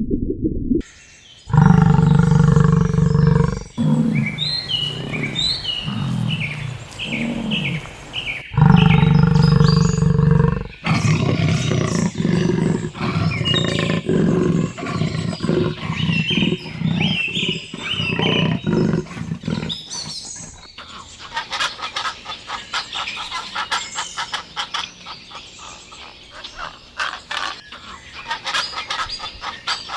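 Animal calls: two long, low-pitched calls about seven seconds apart, with bird-like chirps between them, then a busy stretch of rapid clicks and chirps.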